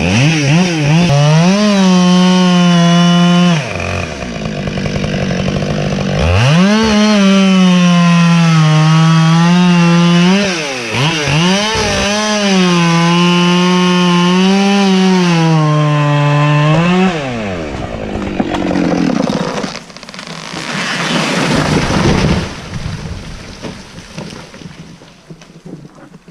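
Two-stroke chainsaw running at full throttle and cutting wood, its pitch wavering under load. It drops back about four seconds in, then revs up again and runs flat out for about ten seconds with a brief dip in the middle, before easing off. The last seconds are quieter.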